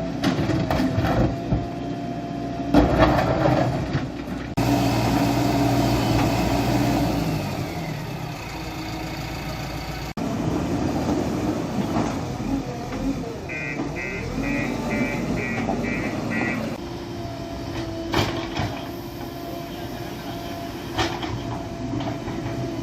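Vehicle engines running, with faint voices around them. The sound changes abruptly several times between cut-together clips. In the middle comes a run of about seven quick beeps.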